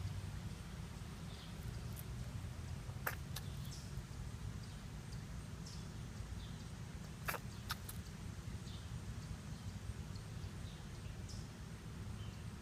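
Outdoor ambience with a steady low rumble, broken by a few short sharp clicks in two close pairs, one about a quarter of the way in and one past halfway, with faint high chirps scattered throughout.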